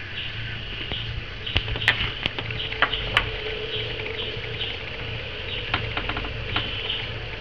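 Insect-like chirping, steady and repeating about two to three times a second, over a low hum, with a few sharp clicks in the first half and again near the end.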